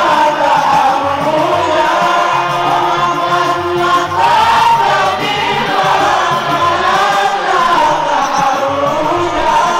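Group of male voices chanting a Maulid qasida in unison, amplified through microphones, over a low pulsing accompaniment.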